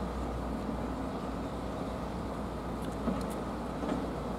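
Steady rumble of road traffic, with a few faint clicks near the end.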